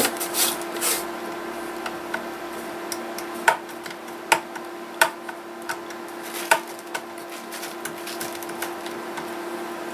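Hand handling of a vintage portable radio: a rustle of bubble wrap in the first second, then a handful of sharp plastic clicks and taps as the top of the set and its damaged antenna are worked.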